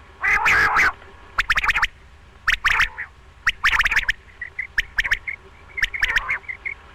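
Quail calling: short sharp calls in quick groups of two to four, about one group a second, with a longer chattering burst near the start.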